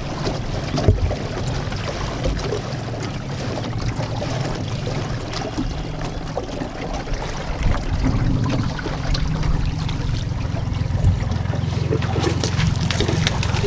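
Four-stroke outboard motor of a small fishing boat running steadily as a low hum, with water and wind noise over it.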